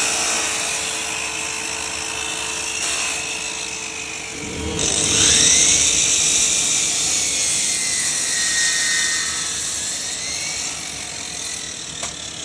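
Electric woodworking power tool motor running with a steady high whine. About five seconds in the sound jumps louder and hissier, and the whine climbs, then slowly sags before rising again.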